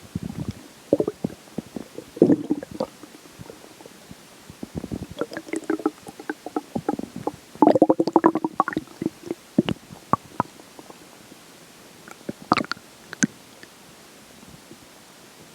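A person's stomach growling and gurgling as it digests a meal, in irregular bubbling bursts. The longest and loudest burst comes about halfway through, with a few short gurgles after it.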